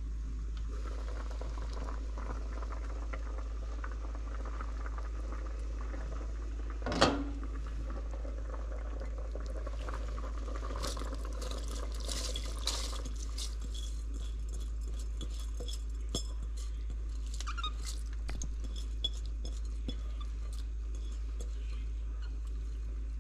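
A pot lid clanks once, about seven seconds in. Then rinsed rice is tipped from a bowl into a stainless pot of simmering liquid for Jamaican rice and peas, a few seconds of rustling splashes, followed by scattered soft ticks and pops from the simmering pot.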